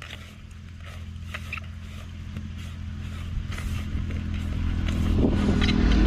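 A motor vehicle's engine hum, steadily growing louder and loudest near the end as it approaches. Faint scraping of fingers working paste around a metal pot is heard under it.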